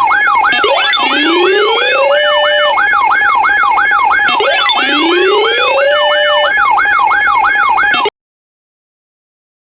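Electronic alert siren: a fast yelping warble, about three cycles a second, over a steady tone, with a slower rising sweep twice. It cuts off suddenly about eight seconds in.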